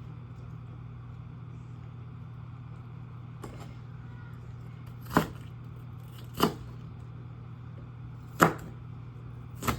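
Knife chopping vegetables on a cutting board: four sharp chops a second or two apart, the last near the end, after one faint tap, over a steady low hum.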